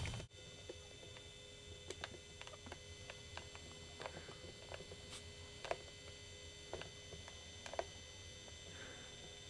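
Faint steady hum with soft, irregular small clicks, about one or two a second.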